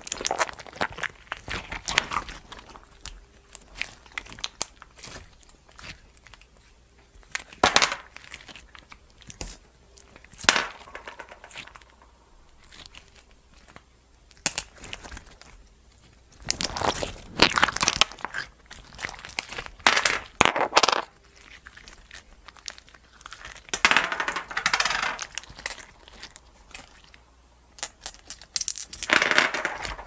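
Hands squeezing and kneading thick homemade slime packed with glass pebbles: wet crackling and popping squishes in irregular bursts, with quieter pauses between handfuls.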